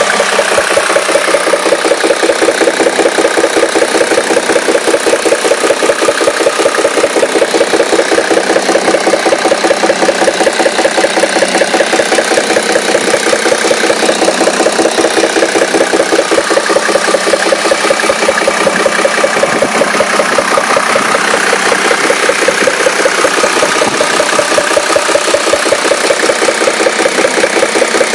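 Mercedes-Benz W210 E300 Turbodiesel's 3.0-litre straight-six diesel idling steadily with a rhythmic knocking.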